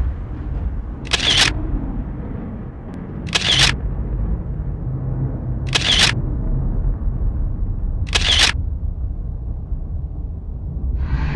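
Four camera-shutter clicks, evenly spaced about two and a half seconds apart, over a steady low rumble.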